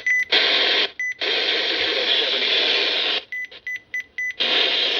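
RadioShack 12-522 weather alert radio beeping at each button press while stepping through channels, with three bursts of receiver static from its speaker between the beeps.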